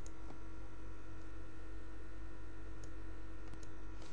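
A few computer mouse clicks, one near the start and a cluster around three seconds in, over a steady electrical hum.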